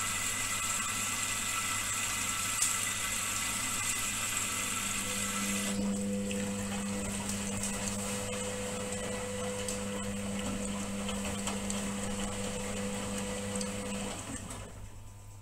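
Indesit front-loading washing machine's motor turning the drum as wet towels tumble, a steady hum with a whine joining about five seconds in. The motor stops near the end and the sound falls away.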